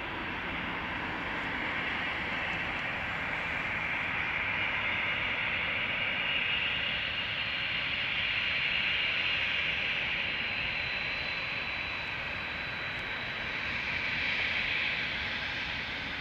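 Boeing 787-8 jet engines at low taxi power: a steady hiss with a faint high whine, swelling and easing as the airliner taxis toward the runway and turns.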